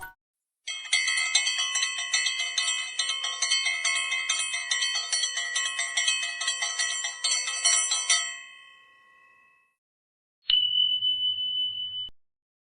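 Sound effect of tinkling bell-like chimes, many high ringing tones struck rapidly over and over for about seven seconds before fading away. After a pause, a single steady high-pitched beep of about a second and a half cuts in and stops suddenly.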